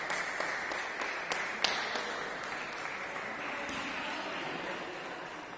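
Scattered applause from spectators at a table tennis match, fading away over a few seconds, with two sharp clicks a little after one second in.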